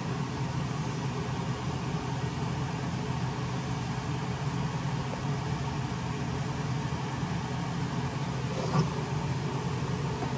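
Steady low mechanical hum with hiss, typical of room air handling or fans, with one short knock about nine seconds in.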